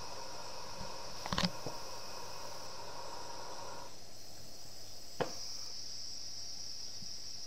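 Steady high hiss from a live-steam model tram engine in steam, with a fainter lower tone under it that stops about halfway as a brass valve on the model is turned by hand. Two sharp metallic clicks, about a second and a half in and about five seconds in.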